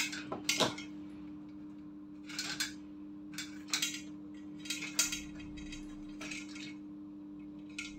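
Stripped electrical wires being twisted together by hand into a joint: short scratchy rustles and light metallic clinks come at irregular intervals as the wires rub against the sheet-metal tube-light fixture. A steady low hum runs underneath.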